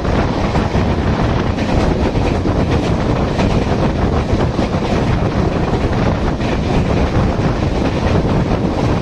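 Steady running noise of a passenger train's coach rolling along the rails at speed, heard from the open doorway, with wind buffeting the microphone.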